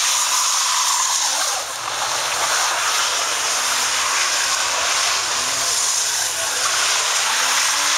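BMW E36 drifting in circles: its rear tyres spin on the wet pavement with a steady loud hiss, over an engine held at high revs whose pitch rises and falls.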